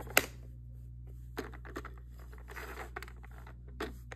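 Plastic clicks and rattling from a Fisher-Price Little People farm-animal toy as its lever is pulled and the pointer spins: one sharp click near the start, then scattered lighter clicks and a brief rattle midway.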